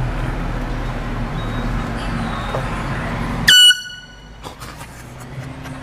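Steady low hum of a car running, then about three and a half seconds in a single short, very loud blast of a handheld canned air horn. After the blast the background drops much quieter, with a few faint clicks.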